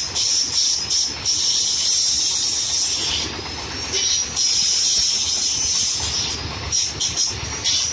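Compressed air hissing from an air-hose tool in on-off bursts as the trigger is squeezed and released, some bursts short and some lasting a second or two, over a low steady rumble.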